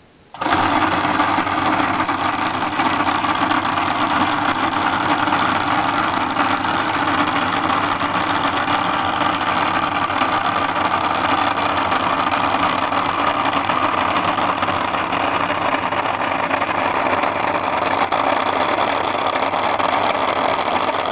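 Mechanised typewriter set in motion: it starts abruptly about half a second in and keeps up a loud, steady mechanical whir and rattle.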